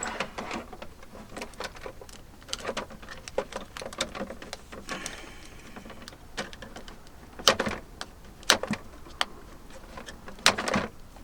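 Scattered clicks and knocks as a mini air conditioner's casing, panels and filter are handled and fitted, with a few sharper knocks in the second half.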